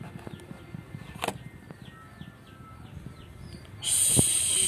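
A small bird chirps faintly over and over. Near the end, a loud steady hiss of gas escaping from a miniature cooking stove starts as its knob is pulled off: a gas leak.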